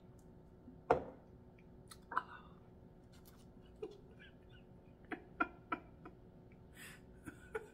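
Scattered short clicks and small mouth noises, such as lip smacks, while crispy fried fish is handled and torn apart by hand, with a brief crackle a little before the end.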